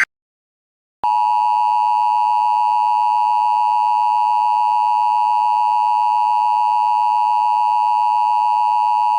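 Emergency Alert System attention signal: a loud, steady two-tone beep that starts about a second in and holds unchanged.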